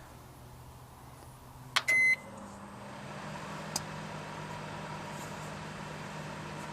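Microwave oven being started: a click and a short beep about two seconds in, then the oven runs with a steady electrical hum.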